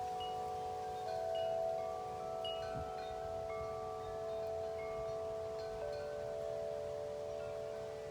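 Wind chimes ringing in the wind: several long, overlapping ringing notes, with a new note struck every second or two, over a low wind rumble.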